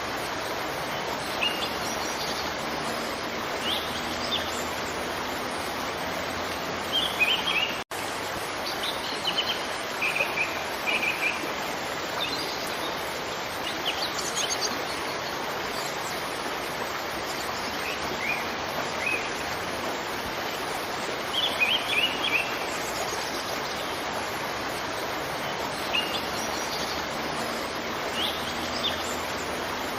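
Steady rush of falling water from a waterfall, with small birds chirping in short phrases every few seconds. The sound drops out for an instant about eight seconds in.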